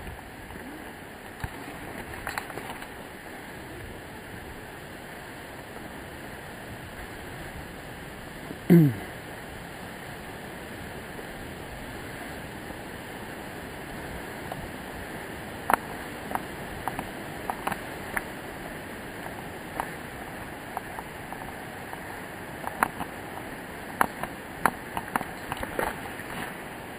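Steady rush of distant falling water from the Savica waterfall, an even hiss. About nine seconds in, one brief loud sound slides down in pitch, and a run of sharp clicks and taps comes through the last ten seconds.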